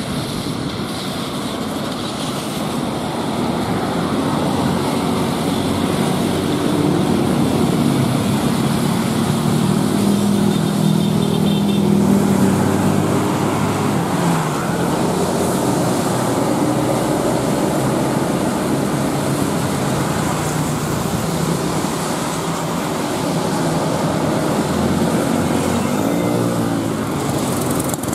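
An intercity coach's diesel engine passing close on a wet road, building to its loudest about twelve seconds in and dropping in pitch as it goes by, over steady traffic noise from motorcycles and cars.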